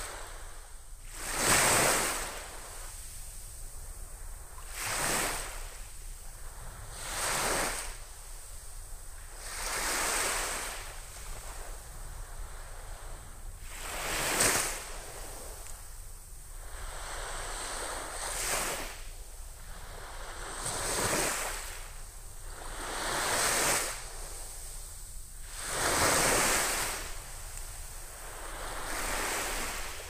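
Small, gentle waves breaking and washing up a sandy beach: a swelling hiss of surf roughly every two to three seconds, about ten in all, the strongest about two seconds in and near the end.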